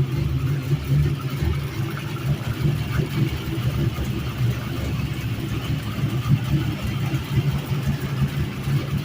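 A rebuilt 1954 Plymouth Savoy's engine idling with a steady low rumble.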